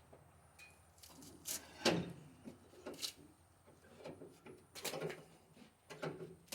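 A series of separate knocks and clatters, about five of them, the loudest about two seconds in.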